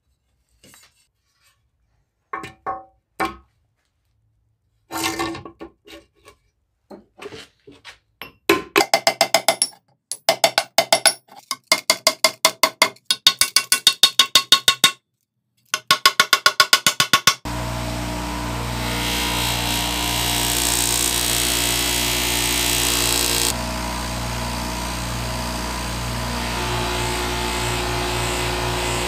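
Hand tool work on metal: a few scattered taps, then fast, even scraping strokes, about five a second, with a metallic ring. About halfway through, an electric power tool starts and runs steadily. A loud hiss rides over the motor for about five seconds, stops suddenly, and the motor runs on.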